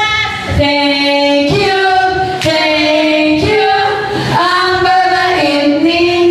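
Women's voices singing a melody together, holding each note and stepping between pitches, with little or no instrument behind them.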